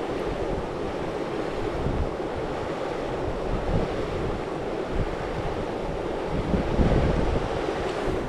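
Rushing river water, a steady hiss, with wind buffeting the microphone in irregular low gusts.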